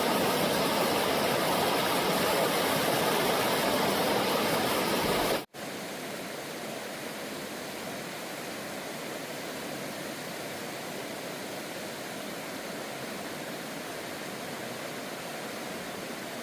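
Steady rushing of flowing water. It is louder for about the first five seconds, then drops abruptly to a quieter, even rush.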